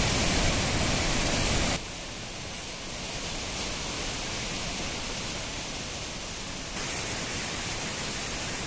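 Rushing water of Hogenakkal Falls on the Kaveri in high flow: a steady, even roar. It drops in level about two seconds in and rises slightly again near the end.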